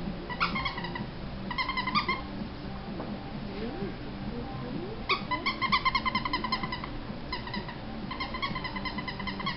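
Squeaker in a plush fox toy squeaked over and over in quick runs: five bursts of rapid squeaks at a steady pitch, the longest lasting about a second and a half.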